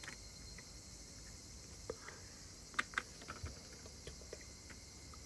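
Faint scattered clicks and taps of cardboard jigsaw puzzle pieces being handled and pressed into place, about eight small ticks, over a faint steady hiss.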